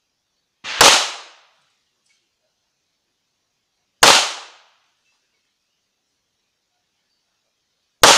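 Three handgun shots, spaced about three to four seconds apart. Each is a single sharp crack that dies away within about half a second.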